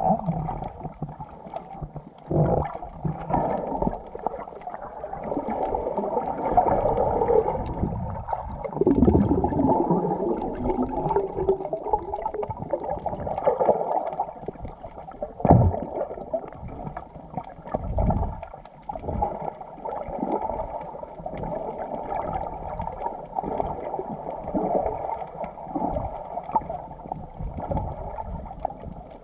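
Muffled underwater water noise picked up by a camera held below the surface: irregular rushing and gurgling surges, with a couple of sharper knocks partway through.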